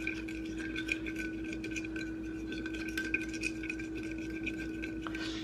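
Metal fork stirring a thick sauce in a ceramic bowl: light, irregular clinks and scrapes of the tines against the bowl.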